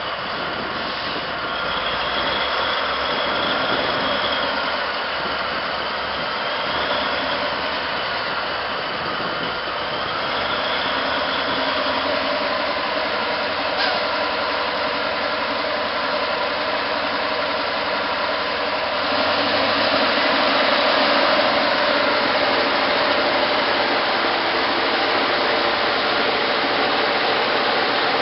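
Caterpillar 777 haul truck's diesel engine working under load while pulling against a tow strap, with a wavering high whine over the engine noise. It gets louder about two-thirds of the way through.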